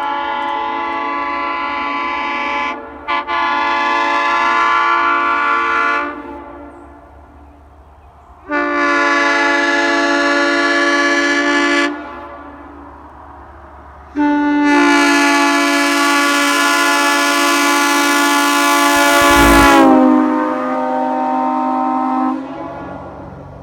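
A 1951 round-base Nathan Airchime M3 three-chime train horn blown on compressed air in three long blasts, the first with a short break in it. The last and longest blast sags in pitch near its end, and its upper notes drop out while the lowest note hangs on for about two seconds more.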